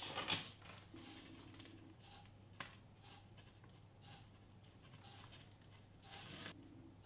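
Faint rustling of a plastic piping bag being squeezed as ganache is piped onto a macaron shell, with short rustles at the start and near the end and one small click a little over two and a half seconds in, over a low steady room hum.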